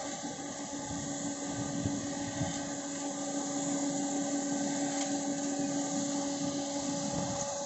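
Coffee roasting machine running, a steady motor-and-fan hum with a low tone that fades out near the end.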